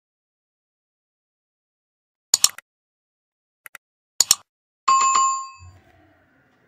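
Subscribe-button sound effect: after about two seconds of silence, sharp mouse clicks in quick pairs, then a single bell ding that rings out and fades.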